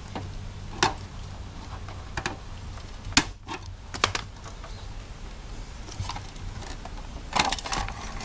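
Hand snips cutting through the electrical wires of a window air conditioner's control board: a few sharp, separate clicks, the loudest about three seconds in and a quick cluster near the end, over a steady low hum.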